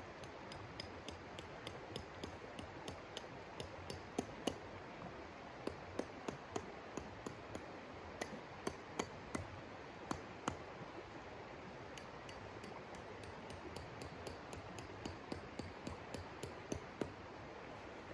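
An irregular run of sharp clinks and taps, a few a second and loudest around the middle, from hard objects being handled at the water's edge, over the steady rush of a flowing creek.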